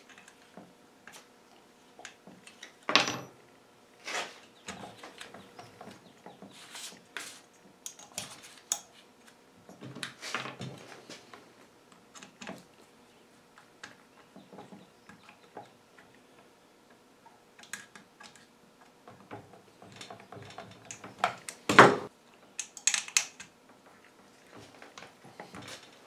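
Scattered clicks, knocks and scrapes of hand tools and metal parts on a Husqvarna 55 chainsaw as a replacement ignition coil is fitted and screwed down, with a sharp knock about three seconds in and the loudest knock near the end.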